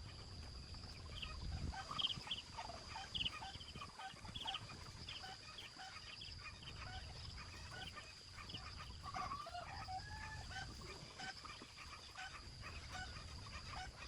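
Chickens clucking in many short, scattered calls, over a steady high-pitched tone.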